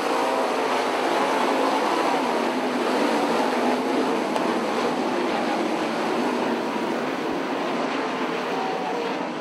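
A pack of winged sprint cars' V8 engines running hard together on a dirt oval, their pitches rising and falling through the turns, easing off slightly near the end.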